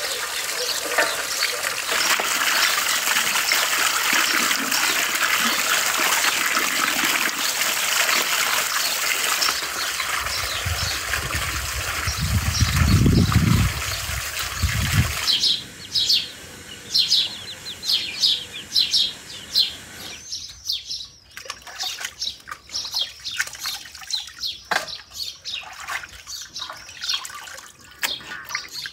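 Water from a stone garden fountain pouring and splashing into an enamel bowl as raw lamb pieces are rinsed by hand. About halfway through the pouring stops, and wet meat pieces are dropped one by one into a stainless steel colander, with short soft slaps and birds chirping.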